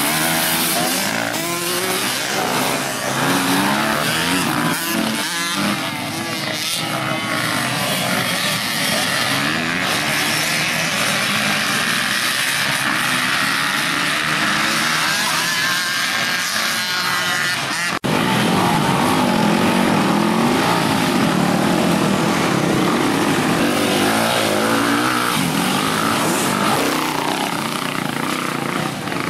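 Several enduro dirt bike engines revving hard, their pitch rising and falling as the riders accelerate and shift. About 18 seconds in the sound changes abruptly to another stretch of bikes revving.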